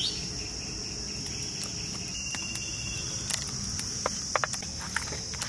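Steady high-pitched chirring of insects in the background, with a brief bird chirp at the start and a few light clicks and taps from handling the food on a clay plate.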